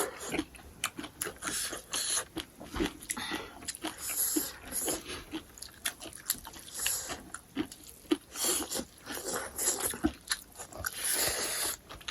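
A person chewing and biting food close to the microphone, with irregular wet clicks and crunches and a few longer noisy stretches of chewing.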